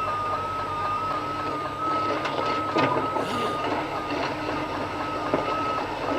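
Heavy truck running under tow load, with a steady high-pitched whine that wavers slightly and a couple of sharp clanks about three seconds and five seconds in.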